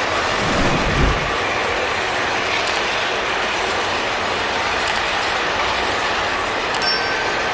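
Freight train of empty grain wagons rolling past on a curve: a steady rumble and rattle of wheels on rail with a click-clack over the joints. A low thump comes about a second in, and brief thin wheel squeal near the end.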